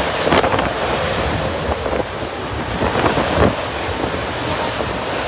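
Strong wind gusting and buffeting the microphone in a steady rushing noise.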